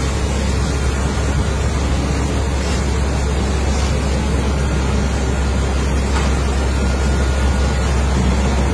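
Drive-through wheel-wash jets spraying a heavy dump truck's wheels and underside, a steady hiss of water over the low, even rumble of the truck's diesel engine as it creeps through.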